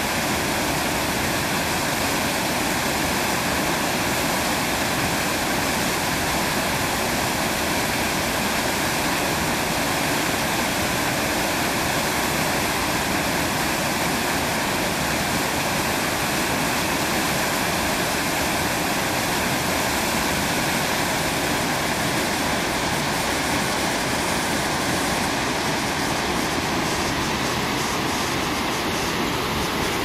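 A wide, low river waterfall spilling over a curved rock ledge into a deep pool: a steady rush of falling water.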